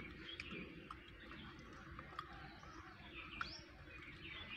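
Faint chirping of small birds: scattered short calls, with one quick rising call about three and a half seconds in, and a few sharp ticks.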